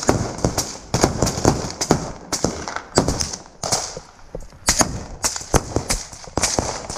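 Footsteps running over rubble and gravel: an irregular run of sharp crunches and knocks, roughly two a second.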